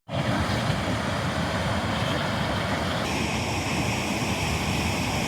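Steady rush of fast-flowing water from a cascading mountain stream or waterfall. Its higher hiss shifts in tone about three seconds in.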